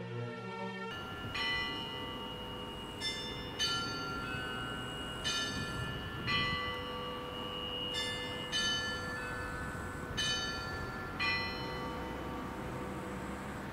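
Church bells ringing: separate bell strokes about every one to two seconds, each ringing on, with a steady lower hum beneath.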